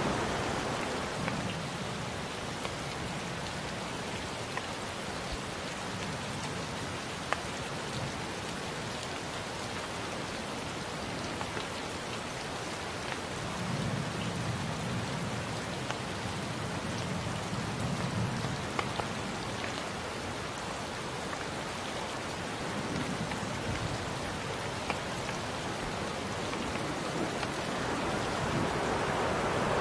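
Steady rain falling, with scattered sharp drop ticks. A low rumble of distant thunder swells and fades about halfway through.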